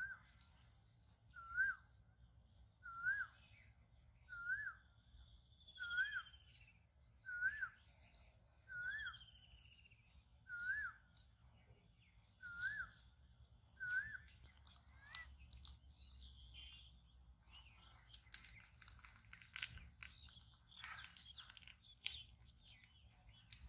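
A bird calling one short note over and over, each note rising and then falling, about once every second and a half, with a few higher sliding calls from other birds. After about fifteen seconds the calling stops, and rustling and light clicks follow.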